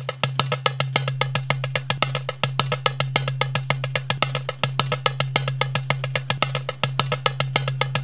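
Instrumental music intro: fast, evenly spaced woodblock-like ticking, about eight a second, over a steady held low note.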